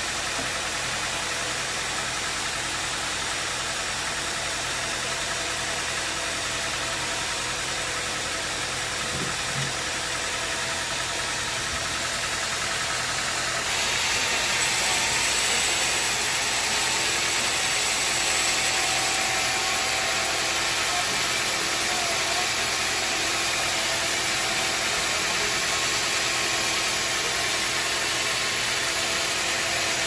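Band sawmill running steadily as its blade cuts a large teak beam fed on the carriage. About halfway through it becomes louder and hissier.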